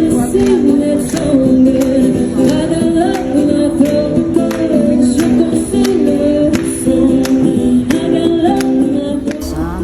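Background music: a song with several voices singing together over a steady beat with tambourine-like hits about twice a second.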